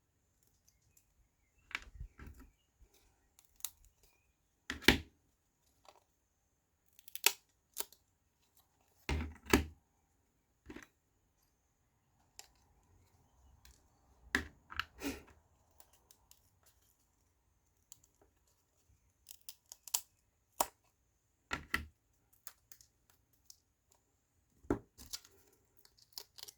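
Thin laser-cut wooden pieces being pushed out of their sheet and handled: scattered sharp clicks and small snaps, with a few short scraping rubs.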